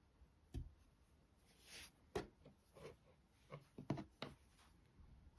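Faint handling sounds of yarn and a crochet hook: a few small clicks and soft rustles, the clearest a little after two seconds and a cluster around four seconds in.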